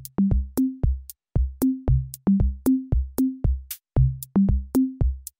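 Background music with a steady beat: sharp percussive hits over short low notes that step up and down between a few pitches.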